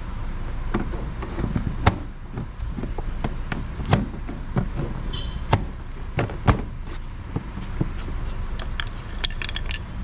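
Jeep Patriot's plastic front fender liner being worked back into the wheel well by hand: irregular plastic knocks, clicks and rubbing, with four sharper knocks standing out.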